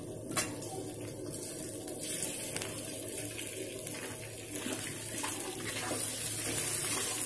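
Hot ghee sizzling in a metal kadhai as boiled potato pieces go in and are turned, with a few clicks and scrapes of the metal spoon against the pan.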